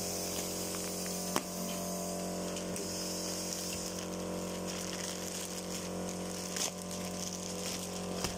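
Steady machine hum with an even hiss, with the crinkle of a clear plastic garment bag being handled and a few sharp clicks, the sharpest about a second and a half in.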